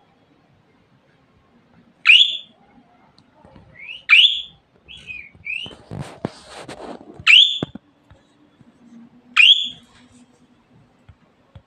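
Budgerigar chirping: four loud, short, upward-sweeping calls about two seconds apart, with a few softer chirps between them. A brief rustle sounds midway.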